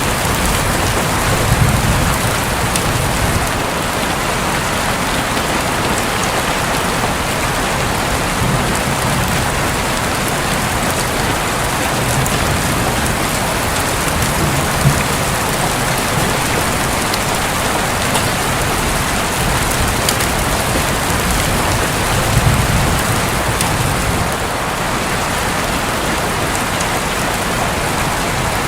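Heavy rain falling steadily on a roof, a dense even hiss, with low rumbles of distant thunder swelling up several times.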